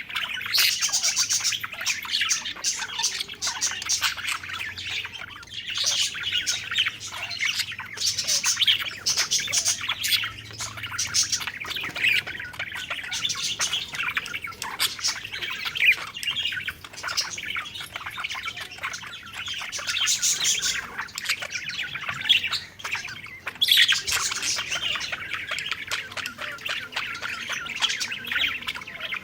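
A flock of budgerigars (parakeets) chattering and chirping continuously, with rapid warbles and occasional squawks overlapping.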